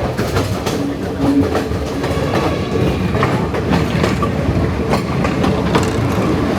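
Passenger train running, its wheels clattering over the rail joints: irregular clicks over a steady rumble.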